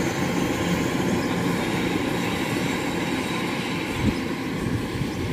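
Kubota 105 rice combine harvesters running in the field, a steady mechanical drone of engine and threshing machinery. A short knock comes about four seconds in.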